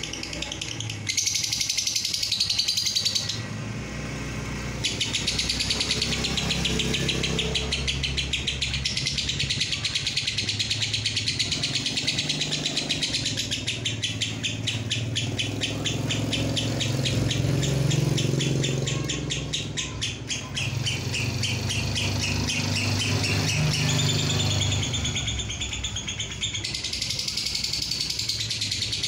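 Fischer's lovebird singing its long 'ngekek' chatter: a fast, unbroken stream of high, trilled notes, thinning briefly about four seconds in. A low, steady hum runs underneath.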